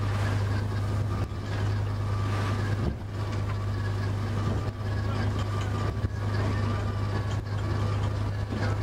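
A boat's engine drones steadily in the wheelhouse while it runs through choppy sea. Several brief knocks and splashes come as waves and spray strike the hull and windscreen.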